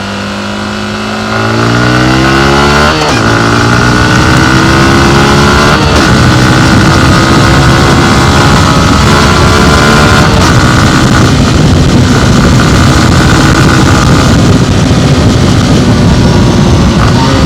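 Yamaha MT15's single-cylinder engine accelerating hard, its pitch climbing and dropping at two gear changes about three and six seconds in, then running at high revs at a fairly steady speed.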